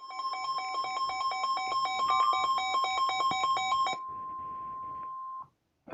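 NOAA Weather Radio's steady 1050 Hz warning alarm tone, announcing a severe thunderstorm warning. For the first four seconds a harsher electronic beeping alarm pulses over it about four times a second. The tone cuts off about five and a half seconds in.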